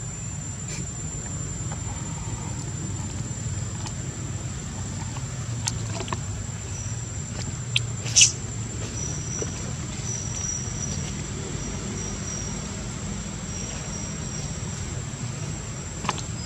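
Outdoor background with a steady low rumble and a thin, steady high-pitched whine, broken by a few sharp clicks; the loudest click comes about eight seconds in.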